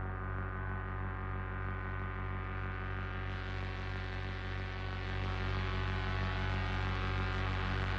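Electronic background music: a sustained, droning low chord with a steady pulse, growing brighter about three seconds in.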